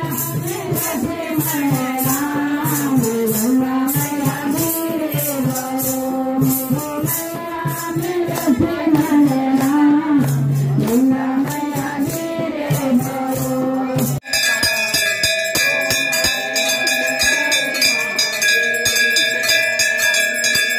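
Women singing a Hindu devotional bhajan together, kept in time by handclaps and jingling rattle percussion. About two-thirds of the way through it cuts to temple bells rung continuously for aarti, a dense ringing with regular strokes.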